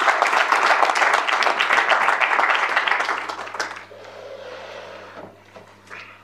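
Audience applauding, a dense patter of many hands clapping that dies away after about three and a half seconds into quieter room noise.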